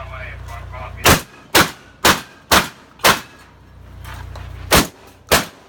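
Shotgun fired in rapid succession: five shots about half a second apart, a pause of over a second, then two more shots half a second apart.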